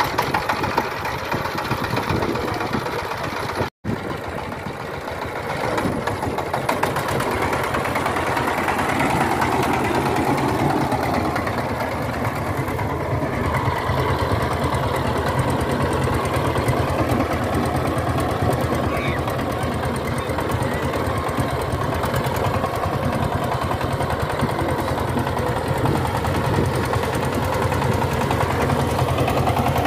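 Single-cylinder diesel engine of a walk-behind power tiller running steadily with a fast, even knocking beat as the tiller works the soil. It cuts out briefly about four seconds in and grows louder a few seconds later.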